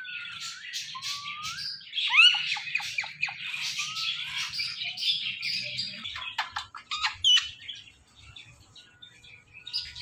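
Rose-ringed parakeet chirping, whistling and squawking in quick runs of short calls, with rising and falling whistles mixed in. The calls die down about eight seconds in.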